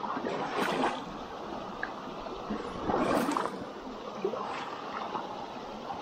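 River water running, a steady rush with two louder surges, one under a second in and one about three seconds in.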